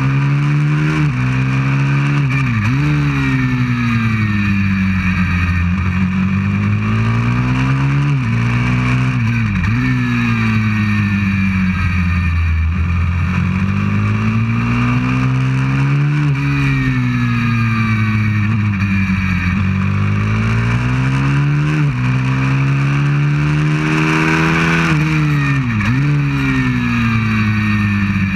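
A 190cc pit bike's single-cylinder four-stroke engine at full race pace, heard from on board: the revs climb and fall again and again, with several brief sharp dips in pitch.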